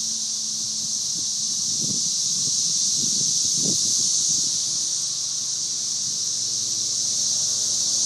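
A dense chorus of 13-year periodical cicadas: a loud, steady, high-pitched drone that never lets up.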